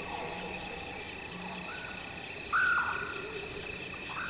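Bush ambience: a steady high insect drone with a few short whistled bird calls, the loudest about two and a half seconds in.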